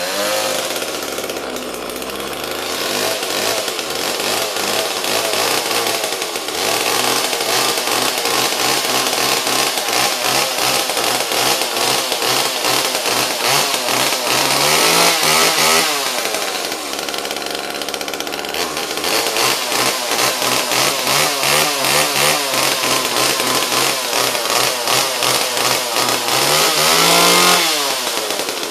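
Small two-stroke Homelite XL chainsaw running loud. It is revved up to a high whine around the middle and again near the end, falling back each time to an uneven, pulsing lower speed.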